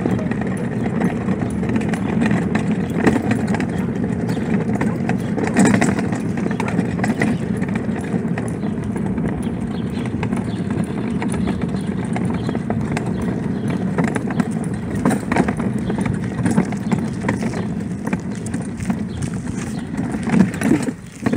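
Wheels of a husky-drawn cart rumbling and rattling steadily over asphalt, with light footsteps mixed in. The rumble falls away near the end.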